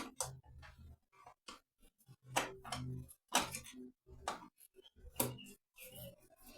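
Irregular sharp clicks and knocks of hand tools and parts being handled on a car engine, with short gaps between them.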